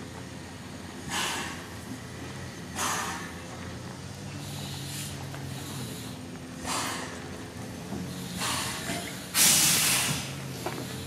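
NZR Ab-class steam locomotive No. 778 moving off slowly, with separate hissing exhaust chuffs about one every second or so over a faint steady hum. The loudest and longest chuff comes near the end.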